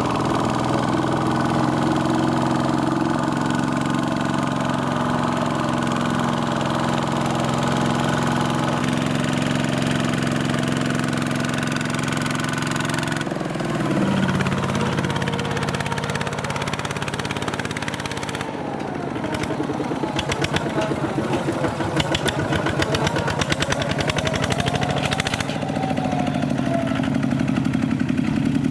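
Mini tractor's diesel engine running steadily. About two-thirds through, its sound changes to a quick, even pulsing chug whose pitch rises and falls as the engine speed changes.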